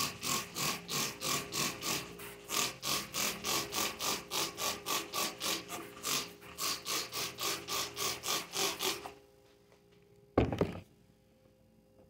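Trigger spray bottle of cleaner being squeezed rapidly, about three quick sprays a second for roughly nine seconds as a door is sprayed down. A single thump follows about ten and a half seconds in.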